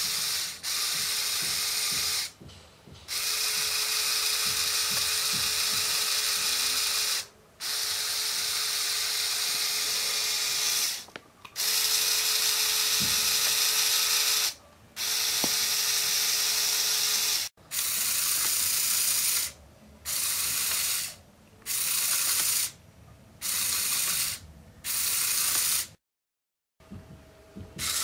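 Small Lego electric motor whirring as it drives the sliding-door mechanism through gears and a rubber-band belt, running in stretches of a few seconds with brief stops between. In the second half the runs shorten to about a second each.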